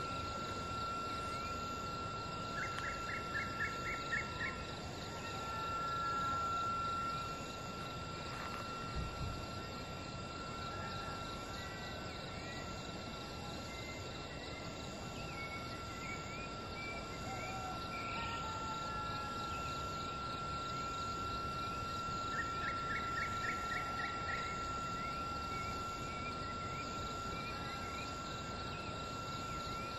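Outdoor night ambience: a steady high-pitched insect trill over a constant hiss, with scattered bird chirps and two short runs of about six quick notes, one a few seconds in and one about two-thirds of the way through.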